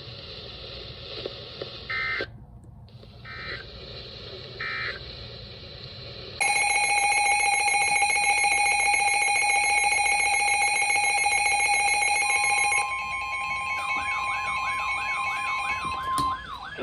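Emergency alert tones between weather warning broadcasts. Three short beeps come a couple of seconds in. From about six seconds a loud steady alert signal of several tones together sounds, and after about thirteen seconds it gives way to a steady tone with a warbling, siren-like tone over it. The tones introduce the next severe weather warning.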